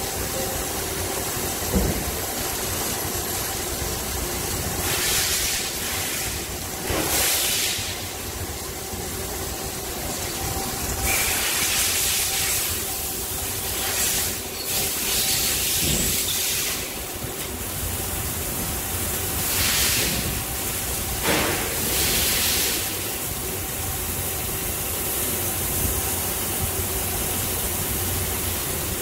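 CNC lathe running with its door open while the tool cuts a metal part under a flood of coolant: a steady machine hum under the hiss of spraying coolant, which surges louder every few seconds.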